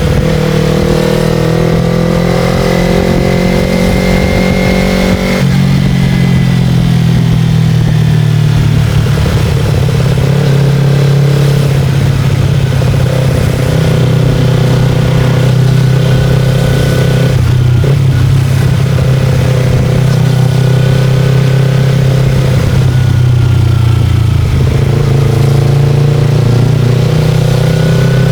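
Motorcycle engine running under way, its pitch climbing for about five seconds, then dropping sharply at a gear change. It then holds a fairly steady pitch with slow rises and falls.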